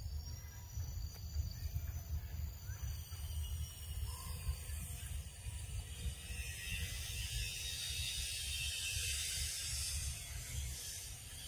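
Outdoor ambience: a high rasping buzz that swells from about three seconds in and fades near the end, over a steady low rumble.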